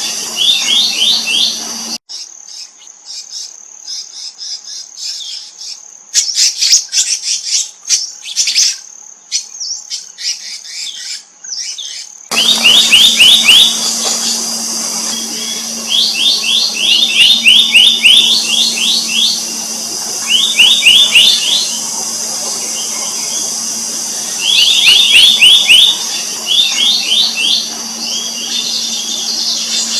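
Black-naped monarch calling: bursts about a second long of fast, ringing repeated notes, several to the second, with short gaps between bursts, over a steady high insect drone. From about two seconds in to about twelve seconds the drone drops out and quicker, higher, scratchy chirps take over instead.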